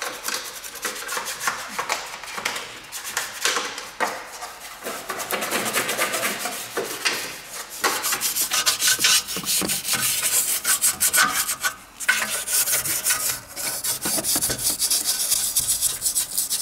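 Toothbrush bristles scrubbing cleaner foam and grime on plastic and metal parts under the front hood, in quick back-and-forth strokes with a couple of short breaks.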